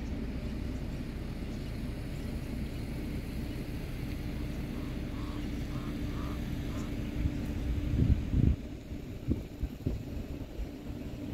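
Car engine idling with a steady low hum, and a few low thumps near the end.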